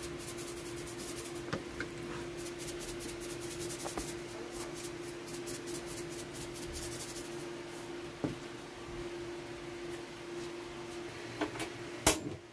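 Salt shaker shaken quickly over sliced raw pork, the salt rattling out in rapid strokes, several a second, for about seven seconds before it stops. A steady low hum runs underneath, and a single sharp click comes near the end.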